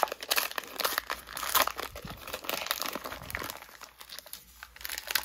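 The wrapper of a trading card pack being pulled open and crumpled by hand: a dense run of crinkling and crackling that thins out near the end.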